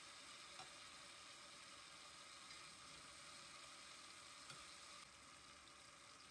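Faint, steady sizzle of food frying in a pan, with a couple of light clicks.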